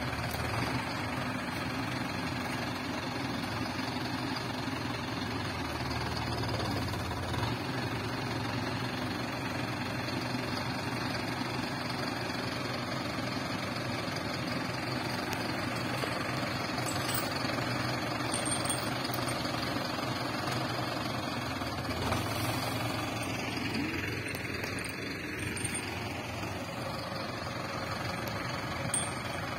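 Mahindra Arjun Novo tractor's diesel engine running steadily, its note rising and falling once a few seconds before the end, with a couple of short clicks.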